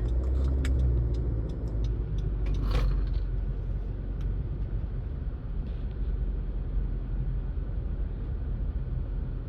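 Car interior while driving: a steady low rumble of engine and road, with a few faint clicks near the start and one short, sharp sound about three seconds in.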